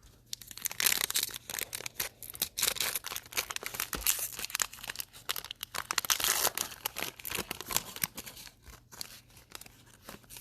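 A trading-card pack's wrapper being torn open and crinkled: a dense run of crackles that starts about half a second in and thins out after about eight seconds.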